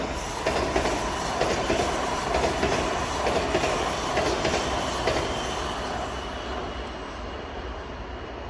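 A train rolling past, its wheels clacking over rail joints in an uneven series of sharp clicks, the sound easing off after about six seconds.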